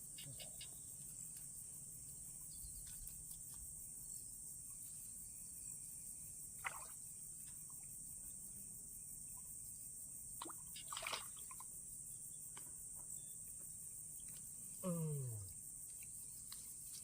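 Insects buzzing steadily at a high pitch, with a few faint clicks and one short sound falling in pitch about fifteen seconds in.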